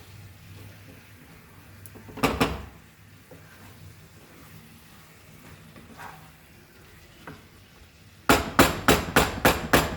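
Spoon against a cooking pan: one clatter about two seconds in, then near the end a quick run of about seven sharp taps, like a spoon knocked on the pan's rim to clear off the masala.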